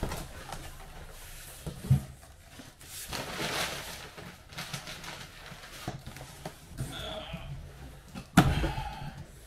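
A sharp knock, a stretch of rustling, then a loud thump near the end.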